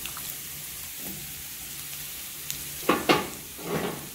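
Diced zucchini, onion and pancetta sizzling steadily in oil and rendered fat in a hot nonstick frying pan as the zucchini goes in. Two short, louder scrapes about three and nearly four seconds in.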